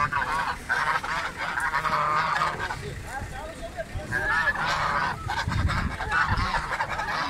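A small group of penned domestic geese honking, several birds calling over one another in quick runs of calls with short pauses between them.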